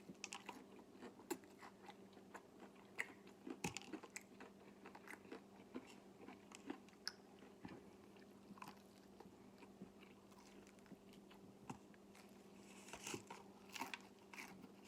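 A person biting into and chewing crispy fried chicken close to the microphone: faint, irregular crunches and mouth clicks from the fried breading.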